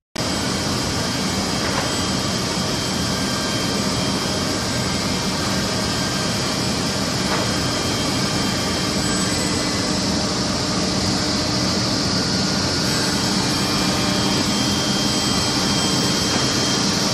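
Steady running noise of a Woodmaster 5-axis CNC wood machining centre: an even, high rushing hiss over a low hum.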